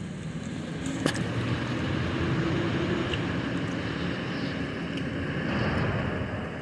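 Fire truck's engine and tyres on the road, swelling about a second in and falling away near the end as the heavy truck drives by. A single sharp click about a second in.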